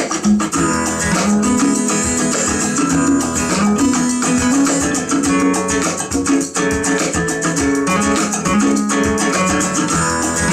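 Recorded song in an instrumental stretch, guitar over steady percussion, played back through a pair of vintage JBL C38 two-way speakers with D130 drivers and 075 ring-radiator tweeters.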